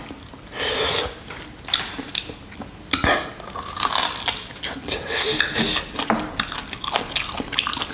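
Close-miked eating of spicy mutton nalli, goat shank marrow bones in gravy: a hissing slurp at the bone about a second in, a couple of sharp clicks, then biting and tearing meat off the bone with wet, crackly chewing.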